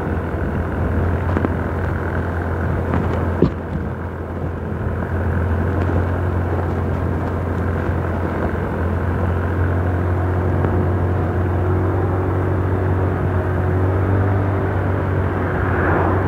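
A vehicle's engine running at a steady speed under road and wind rumble, heard from the moving vehicle itself. A single sharp knock about three and a half seconds in.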